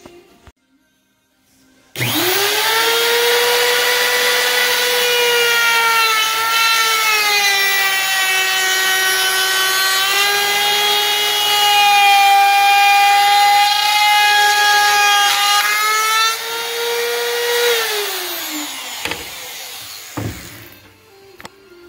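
Trim router with a top-bearing bit starting up about two seconds in and running with a high, steady whine that sags slightly in pitch as it cuts a slot through PVC pipe. Near the end it is switched off and winds down with falling pitch, followed by a couple of short knocks.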